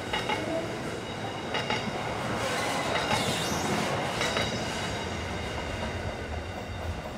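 Freight train wagons rolling past at speed with a steady rumble and the clatter of wheels over the rail joints, a few sharp clicks about a second apart. The wheels squeal high-pitched on the curve.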